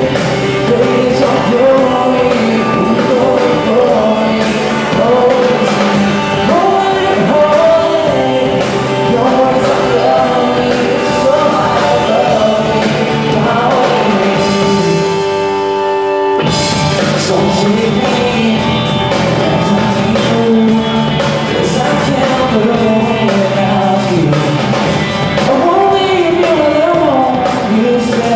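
Live rock band playing a worship song: a male singer over electric guitars and drums. About halfway through, the drums and bass drop out for about two seconds under a held note, then the full band comes back in at once.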